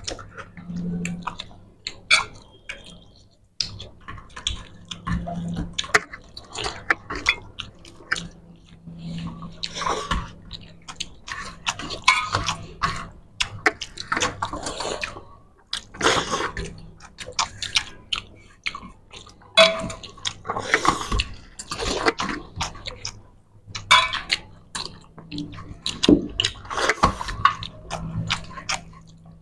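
Two people eating fish curry and rice by hand: chewing, with wet squishing of rice and curry and fingers scraping across steel platters, in irregular clicks and bursts.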